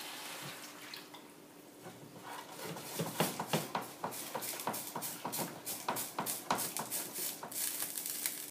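Non-stick frying pan shaken and slid back and forth on a glass hob to mix cream into scallops, a quick irregular run of clicks and knocks starting about two seconds in. A soft sizzle of the liquid in the pan fades away in the first second.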